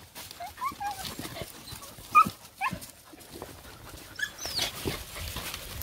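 Hunting dogs whining and whimpering in short high cries, with a longer, higher whine about four and a half seconds in, as they nose at a hole in tree roots where an agouti has gone to ground.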